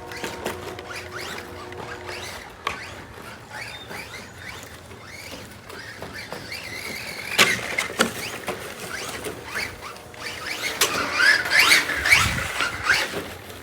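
Electric motor of a 1/10-scale RC rally car on a 3S battery, whining in short rising and falling bursts as the throttle is worked on a dirt course, with a few sharp clicks. It is busiest about seven seconds in and again from about eleven seconds to near the end.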